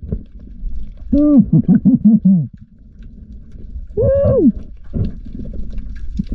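A diver's muffled whoops heard underwater. A long call rises and falls about a second in and is followed by a quick run of short notes, like laughter. Another wavering call comes about four seconds in, over a low underwater rumble.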